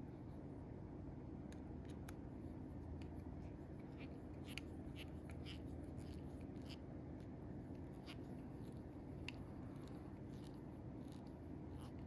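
Faint, irregular small clicks and ticks of metal folding-knife parts and a Torx screwdriver being handled during reassembly, over a steady low hum.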